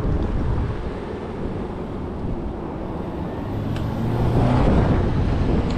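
Wind rumbling on the microphone over a steady low road rumble, with a short low hum swelling about four seconds in.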